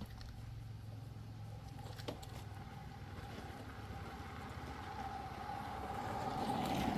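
A motor vehicle's engine running steadily with a constant pitch, growing louder toward the end.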